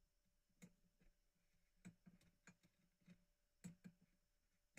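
Near silence with a handful of faint, irregular clicks: long-nose pliers working the spade connectors off a woofer's terminals.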